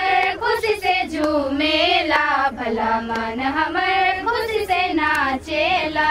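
A high singing voice in a song, its pitch sliding and wavering in ornamented runs and settling into a long held note near the end.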